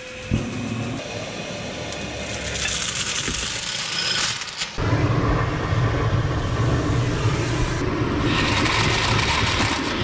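Vacuum cleaner sucking up Christmas decorations through its hose, with a few light rattling clicks early on, first drawn through clear plastic tubing, then pulling in a tinsel garland. About five seconds in the suction noise jumps suddenly louder and fuller.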